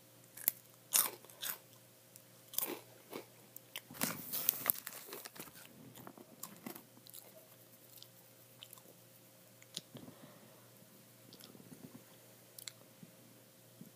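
Flamin' Hot Cheetos, crunchy corn puffs, being bitten and chewed close to the microphone: a run of sharp crunches, thickest about four seconds in, thinning to occasional ones in the second half.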